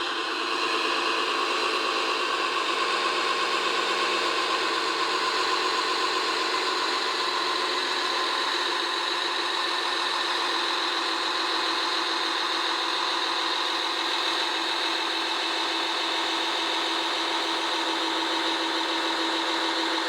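Steady engine sound of an RC construction truck running evenly, with a rattle in it and almost no low bass.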